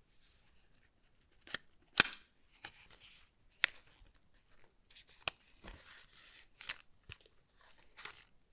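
Keyboard packaging being handled: irregular sharp clicks and taps, the loudest about two seconds in, over soft crinkly rustling.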